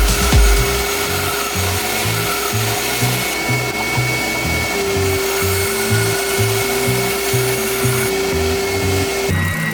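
Background music with a steady bass rhythm and held synth chords.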